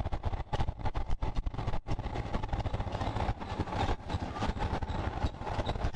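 Motorcycle engine running as the bike rides along, with a dense, uneven low rumble.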